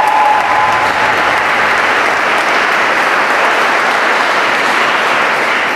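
Audience applauding steadily, a dense, even clapping. A held voice note fades out in the first half second.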